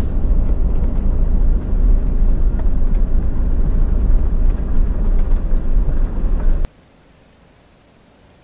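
Steady low rumble of a vehicle on the move, cutting off abruptly about two-thirds of the way through.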